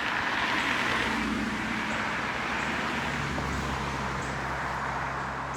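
A car driving past, its tyre and engine noise swelling about a second in.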